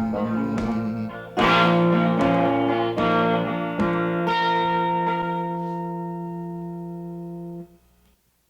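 Closing bars of a song on guitar: several chords struck, then a last chord left ringing and slowly fading, cut off abruptly near the end.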